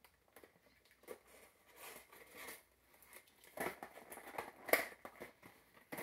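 Action-figure packaging being worked open by hand: irregular crinkling and clicking, busier in the second half, with one louder snap a little before the end.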